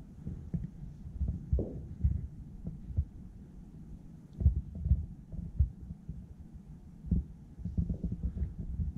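Low, irregular thumps and rumble: handling noise from a handheld camera being moved about.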